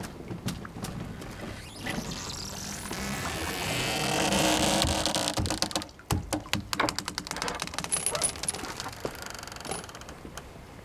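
Mooring line and rubber mooring snubber creaking and groaning under load as the line is pulled taut. The sound builds over a few seconds and breaks off suddenly about six seconds in, followed by a run of rapid crackling clicks.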